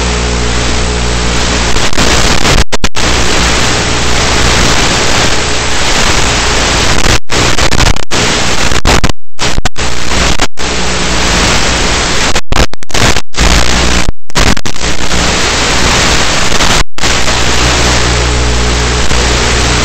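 Loud steady hiss like radio static on the FPV plane's onboard audio, broken by several brief dropouts to silence. A low hum with steady overtones, fitting the plane's electric motor, gives way to the hiss about two seconds in and comes back near the end.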